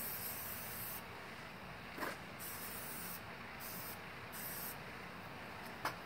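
Aerosol spray-paint can hissing in several bursts of about a second each, with short pauses between, as letters are sprayed onto a garage door.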